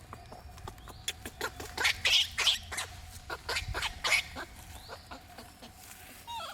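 Monkeys giving a rapid series of short, sharp calls, loudest and densest around the middle. A faint steady tone sits behind them.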